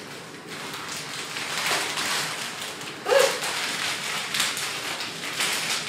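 A plastic mailing bag being punctured with a pen and torn open, crinkling and rustling irregularly with small crackles throughout.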